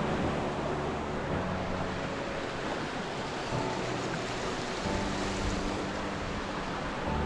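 A steady rushing noise, like running water or wind, under background music with slow held notes that change every second or two.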